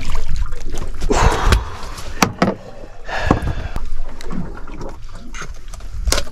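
Handling noises on a boat's fibreglass deck as a hooked reef fish is unhooked with pliers and a fish grip: scattered sharp knocks, clicks and dull thumps, with a loud click about two seconds in and another near the end.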